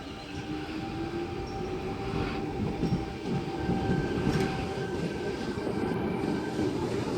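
A train approaching, its rumble growing steadily louder, with a tone that rises in pitch over the first couple of seconds and thin steady whines above it.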